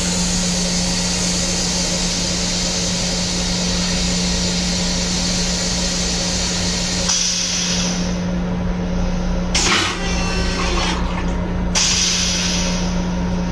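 LIRR M7 railcar toilet flushing: a steady hiss of rinse water spraying around the stainless-steel bowl for about seven seconds, then the spray dies away as the bowl drains, with a short burst of noise about ten seconds in. A steady low hum runs underneath.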